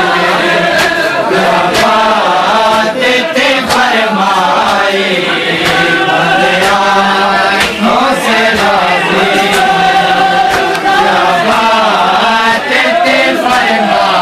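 A group of men chanting a Shia mourning lament (nauha) together, loudly and without pause, with sharp irregular slaps of matam, hands striking bare chests, over the chant.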